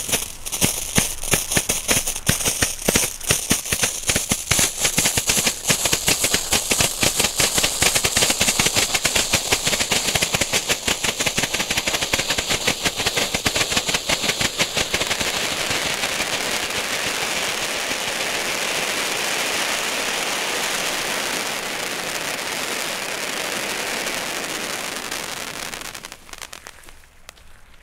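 Leslie Wonder Cones, small ground fountains with a red strobe effect, burning: a rapid, dense popping of strobe flashes, giving way about halfway through to a steady hiss of sparks that dies away near the end.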